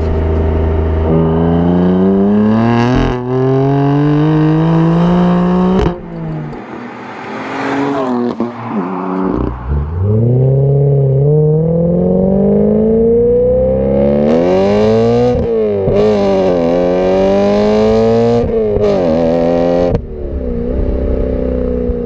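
BMW E93 M3's 4.0-litre V8 accelerating hard through a full headers-back aftermarket exhaust. The revs climb for several seconds, break at a gear change about six seconds in, fall away, then climb again. Later they rise and fall quickly several times before settling to a steadier note near the end.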